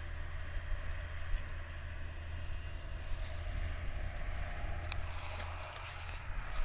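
Fendt 939 tractor running steadily under load while pulling a strip-till rig, over a steady low rumble. A few brief clicks come about five seconds in.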